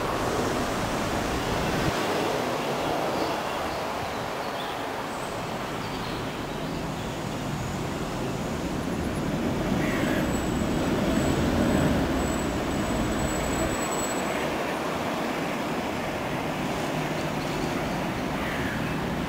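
Road traffic running steadily, swelling a little past the middle as a vehicle passes.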